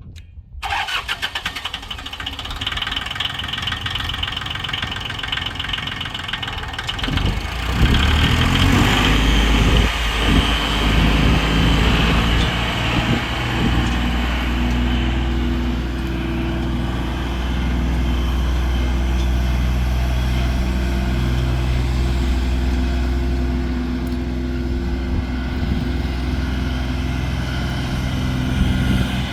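John Deere 850 tractor's three-cylinder diesel engine being cranked by its starter for about seven seconds, catching, briefly running up louder, then settling into a steady idle.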